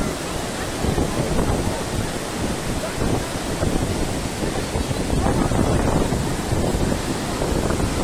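Waterfall pouring down a rock face and over boulders, a loud steady rush of water, with wind buffeting the microphone.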